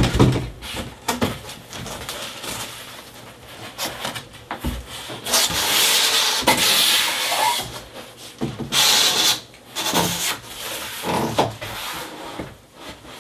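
A large corrugated cardboard box being opened: a knock at the start, then cardboard flaps scraping and rubbing against each other in uneven bursts as they are pulled open, the longest about five to seven seconds in.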